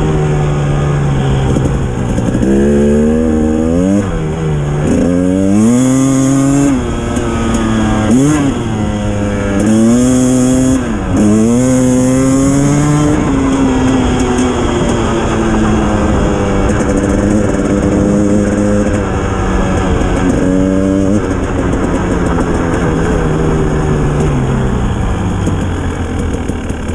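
Dirt bike engine under way off-road, its pitch climbing and falling repeatedly as the throttle is opened and closed, with sudden drops between rises like gear changes, then a steadier stretch of running.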